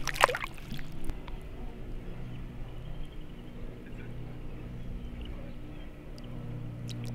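Pond water sloshing and dripping around a peacock bass held by the jaw at the surface for release, with small splashes, over a steady low hum.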